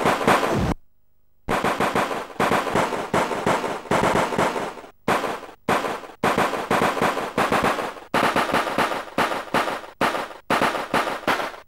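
Repeated bursts of rapid machine-gun fire, a dubbed battle sound effect, in runs of about a second with short breaks between them. The sound cuts out briefly less than a second in.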